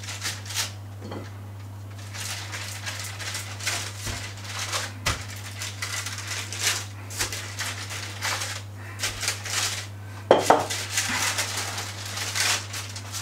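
Wooden rolling pin rolled back and forth over dough sandwiched in baking paper, the paper crackling and rustling with each stroke. Near the end a louder rustle as the top sheet of baking paper is peeled back.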